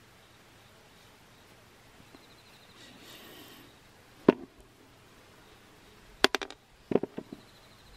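Sharp clicks and taps of steel wire rope being handled against metal tools: one click about four seconds in, then a quick run of clicks near the end.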